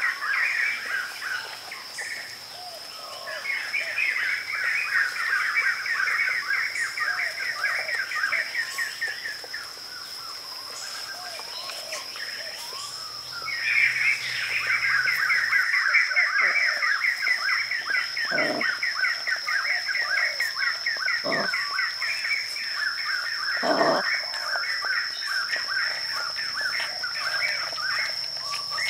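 Birds chirping in long runs of rapid, repeated notes over a steady high-pitched tone, with a few short falling calls in the second half.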